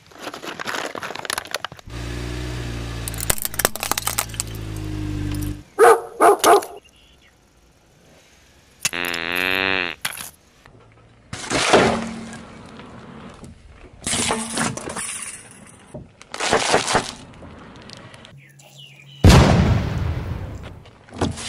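A car tyre rolling over and crushing plastic jars and a paper carton: several separate cracking, crunching crushes, the loudest about nineteen seconds in. Between them come inserted sound effects: a low hum from about two seconds in and a warbling tone about nine seconds in.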